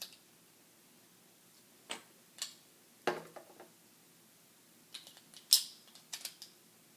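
Small plastic Lego pieces and a sticker sheet being handled while stickers are put on: a few separate sharp clicks and light taps, the loudest about five and a half seconds in.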